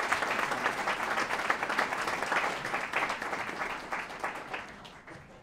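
Audience applauding. The clapping tapers off over the last couple of seconds.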